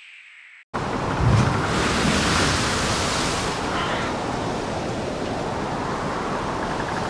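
Steady rushing of ocean surf, a sea-waves sound effect, that cuts in abruptly about a second in, with a couple of low swells.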